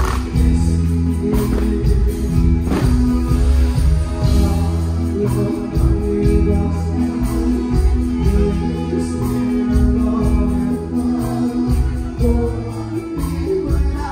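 Band music with a steady beat, strong bass and held melody notes, and a singing voice at times.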